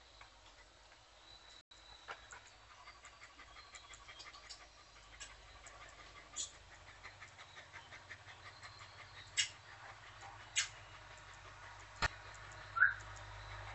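A dog panting in quick, regular soft breaths. Several sharp clicks come in the second half, and one short high chirp sounds near the end.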